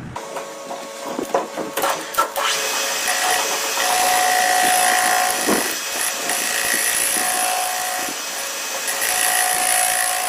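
CNC machine cutting: a rasping cut under a steady high whine that drops out briefly and returns several times, after a few sharp knocks in the first two seconds or so.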